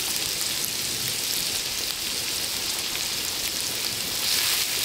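Food frying in a pot on a gas burner at high heat: a steady sizzling hiss that grows a little louder near the end.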